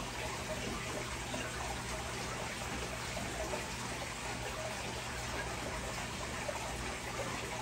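Steady trickle and splash of water circulating in a large aquarium, as from a filter return, over a low steady hum.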